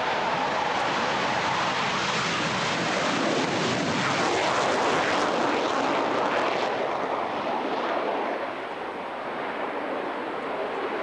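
Panavia Tornado's twin RB199 jet engines in afterburner, a loud jet roar as it takes off and climbs away. The roar is fullest about the middle, then loses its top hiss and dips a little as the jet moves off.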